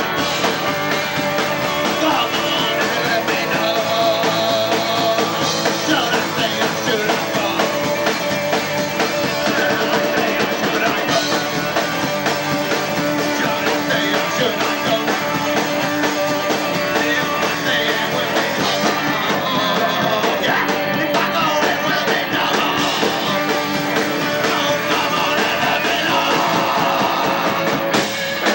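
A live punk rock band playing at full volume, with distorted electric guitars and a drum kit driving the song, and a voice singing over it.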